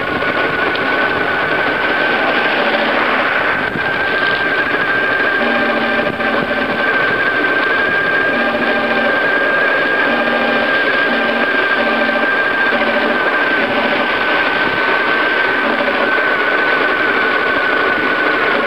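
A bicycle rolling along a paved path at a steady speed: a rough rolling noise with a steady high whine that holds nearly the same pitch throughout.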